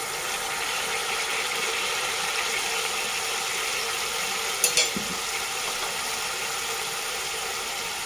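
A steady hissing hum of kitchen noise, with a brief clink of kitchenware about four and a half seconds in.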